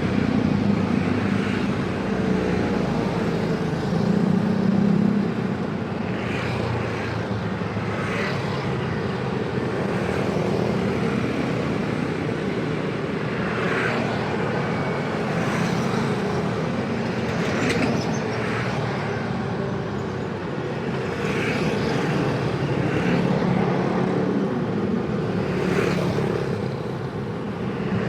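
Busy road traffic: many vehicle engines running and passing in a continuous mix, with short sharper sounds cutting through every few seconds.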